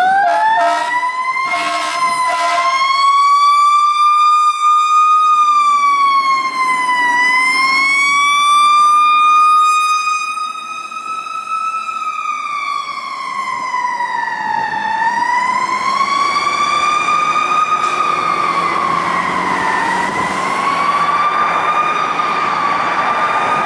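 A fire engine's Federal Q mechanical siren winds up and wails, its pitch swelling and falling back in long slow sweeps every few seconds. A few short blasts sound over it in the first three seconds.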